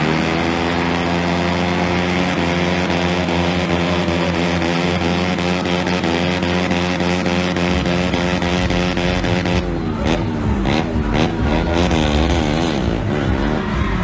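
Honda CBR150R single-cylinder four-stroke engines held at high revs during a rear-tyre burnout, a steady drone. About ten seconds in, the revs start rising and falling in quick blips as a bike pulls away.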